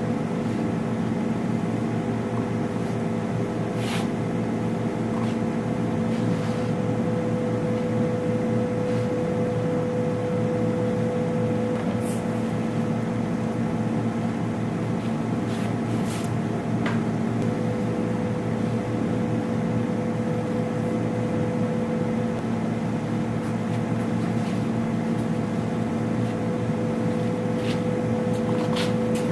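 A machine running with a steady, even hum of several constant pitches, switched on just before and holding level throughout, with a few faint clicks and taps over it.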